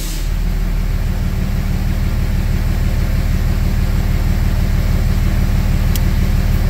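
2004.5 Ram 3500's Cummins turbo-diesel idling steadily with an even, rapid low pulsing. The idle has smoothed out after a new crankshaft position sensor plug.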